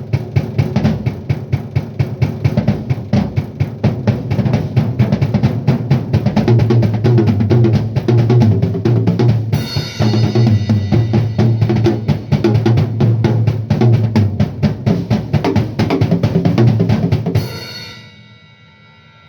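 Drum kit played in a busy groove with rapid snare and bass drum hits and fills, in a classic 70s style. About halfway through a cymbal joins in; the playing stops near the end, leaving a cymbal ringing out and fading.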